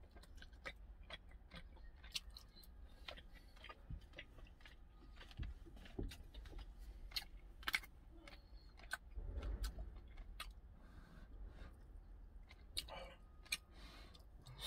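A metal spoon clicking and scraping in an opened tuna tin and in a plastic tub of multigrain rice, with chewing, as many short scattered clicks. A brief low rumble comes about nine seconds in.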